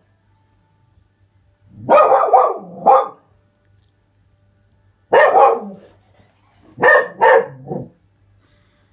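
Springer Spaniel puppy barking in three short bouts of two or three barks each, with pauses between them: alert barking at something it sees outside the window.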